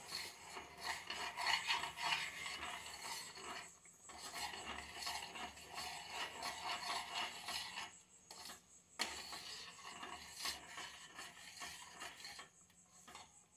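Metal spoon scraping and stirring thick almond paste around a stainless steel pot as it roasts in ghee, a continuous rasping scrape with a few brief pauses and one sharp knock about nine seconds in. The paste is being kept moving so it does not stick to the bottom.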